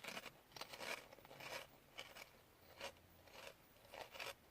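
Faint, irregular crunches of Munchos potato crisps being chewed.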